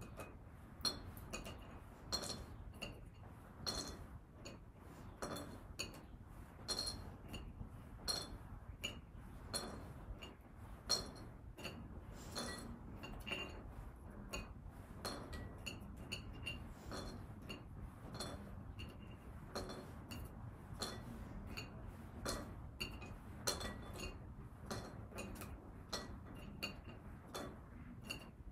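Chopsticks clicking and tapping against a plate as small pieces are picked up one at a time, with irregular sharp clinks about a second apart.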